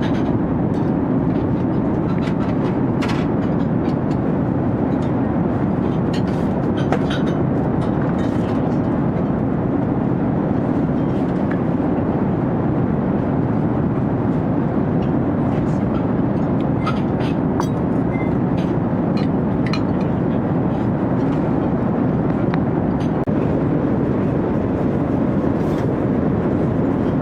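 Steady drone of an airliner cabin in flight, the low rushing of engines and airflow, with light clicks and clinks now and then.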